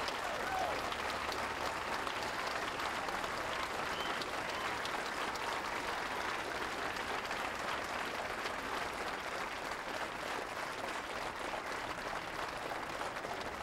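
Crowd applauding: long, steady clapping at an even level.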